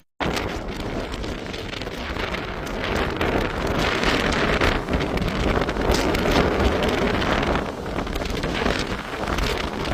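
Hurricane-force wind gusting and buffeting the microphone, with heavy rain, as a dense roar that rises and falls in gusts. A split-second gap at the very start.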